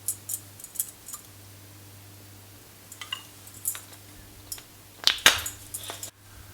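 Kitchen utensils and cookware clinking: a scatter of light clicks and clinks, with a couple of louder knocks about five seconds in.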